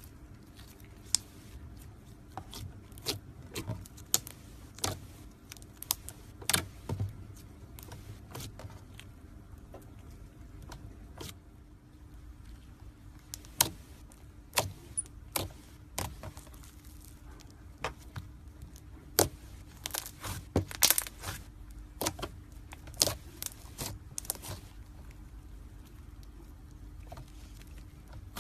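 Irregular sharp clicks and taps of small hard objects being handled, over a faint steady hum.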